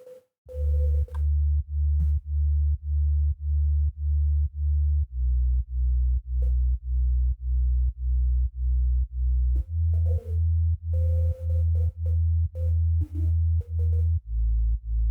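Low synth bass playing a steady pulse of about two notes a second, shifting to a new pitch every four to five seconds through four notes. It is a bass layer meant to add depth to the beat.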